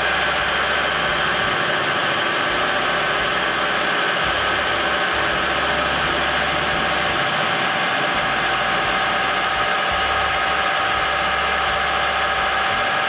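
Metal lathe running steadily on automatic feed while facing off the end of a bolt, a constant gear-and-motor sound with several steady tones.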